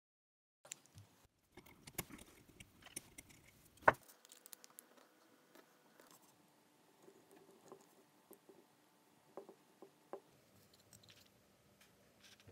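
Faint clicks, taps and light scraping of a sea water pump's bronze and cast-metal parts and its plastic drive gear being handled and fitted together by hand, with one sharper click about four seconds in.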